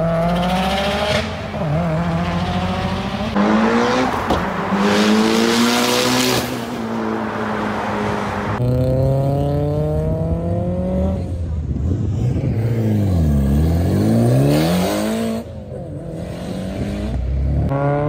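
Performance car engines revving and accelerating hard through the gears, pitch climbing and dropping again and again, in several cut-together clips.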